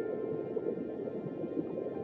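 Ambient background music: sustained high tones held over a steady low wash of sound.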